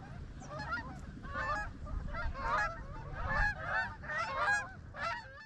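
Large flock of waterfowl calling as it flies high overhead: many overlapping calls, dense and continuous.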